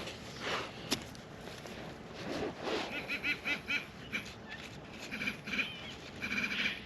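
Metal detector beeping over a buried coin: a quick run of short beeps about three seconds in, then longer steady tones near the end, with faint scraping of soil between them.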